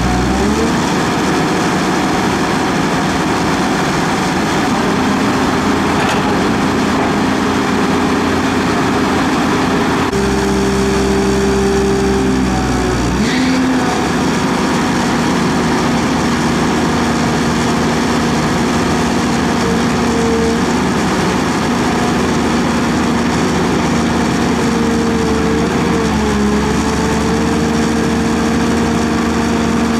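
Diesel engines of tracked excavators, a Caterpillar 320 closest, running steadily as they work, with the engine pitch stepping and sliding up and down several times as the hydraulics are loaded.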